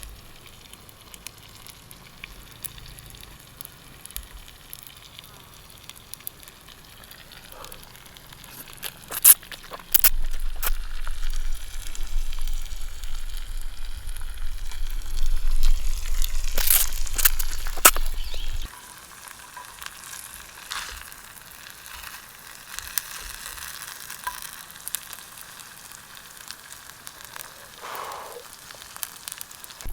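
Sizzling and crackling of cooking over a wood campfire, with fine pops and clicks throughout. It grows louder for about eight seconds in the middle.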